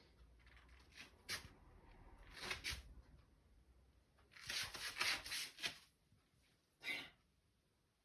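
Faint rustling and scratching from a kitten at play, in a few short bursts, the longest about four and a half to six seconds in.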